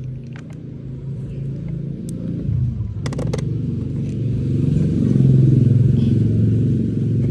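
Yamaha YTX 125's single-cylinder four-stroke engine running after the new air filter is fitted, its note rising and getting louder for a few seconds before settling. There is a brief clatter about three seconds in.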